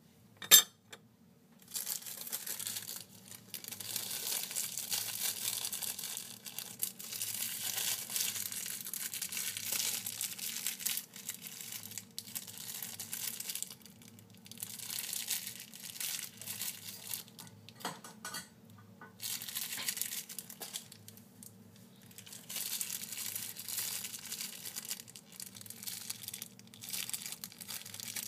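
A couple of sharp clicks right at the start, then a thin clear plastic bag being crinkled and crushed in the hand, in stretches of several seconds with short pauses between.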